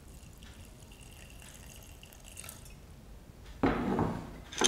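Water poured from a jar trickling faintly into a pressure cooker of soaked chana dal. About three and a half seconds in comes a louder scrape lasting about a second as the cooker's lid is taken up from the counter.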